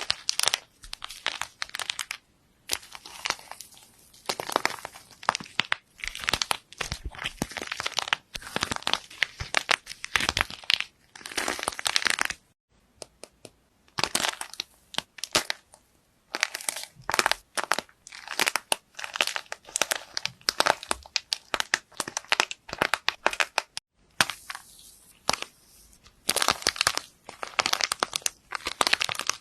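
Crunchy slime being squeezed and pressed by hand: rapid crackles and pops in bursts of a second or two with short pauses, broken off twice by a moment of near silence.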